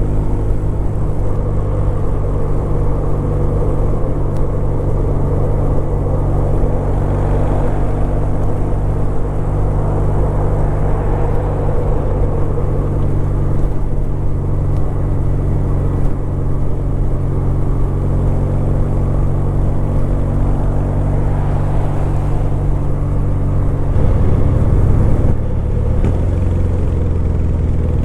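Kawasaki W800's air-cooled parallel-twin engine running steadily while the motorcycle is ridden. The engine note changes and grows slightly louder about 24 seconds in.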